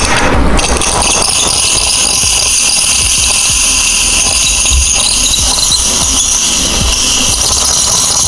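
The steam wand of a Lebensstil Kollektion home espresso machine hisses steadily into a jug of milk, starting about half a second in.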